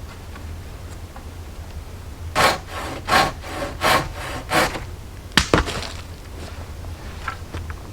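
Hand saw cutting through wood in about four strokes, followed by two sharp knocks.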